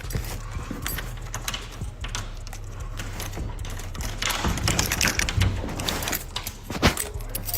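Irregular light clicks and rattles of small hard objects being handled, with a stretch of rustling about four seconds in, over a steady low hum.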